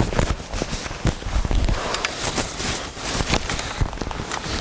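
Close handling noise: irregular knocks, clicks and rustles as things are rummaged through near the microphone, over a low rumble.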